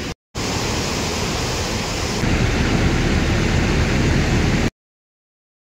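Steady loud rushing noise that grows deeper about two seconds in and cuts off abruptly to silence near the end.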